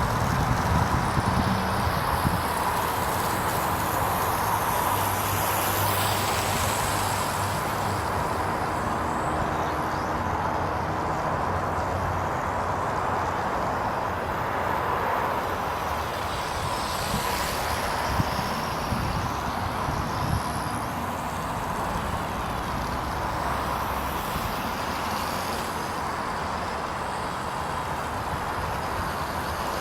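Dromida Vista quadcopter's four small electric motors and propellers buzzing steadily in flight, a constant whine, with wind rumbling on the microphone in gusts, strongest near the start.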